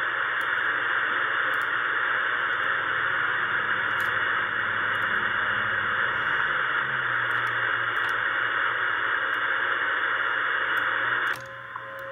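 Ten-Tec Pegasus shortwave receiver's speaker giving out steady static hiss on an empty 7.250 MHz sideband channel, with the top end cut off. About eleven seconds in, the hiss drops as the set is retuned to 10 MHz and a steady tone comes in.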